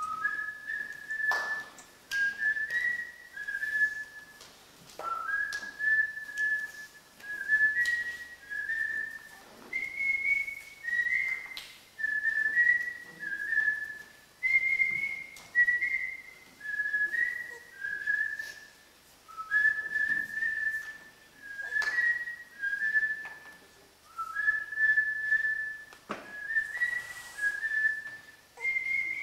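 A high, clear whistled tune played in short repeated phrases of stepping notes, with occasional knocks.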